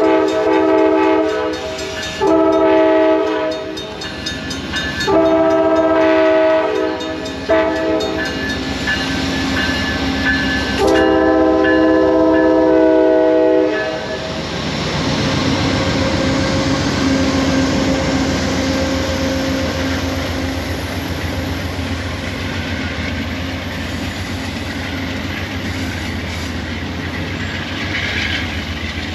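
Amtrak Vermonter locomotive's air horn sounding a chord of several notes in a series of long blasts, with one short blast before the last long one. From about 14 seconds in, the train pulls away: a steady diesel rumble and wheels clacking on the rails.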